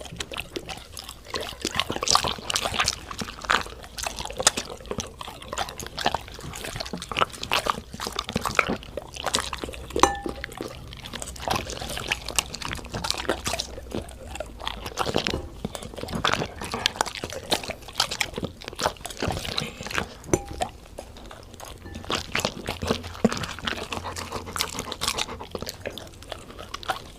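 Dogs eating, with a constant run of wet lapping, smacking and slurping clicks.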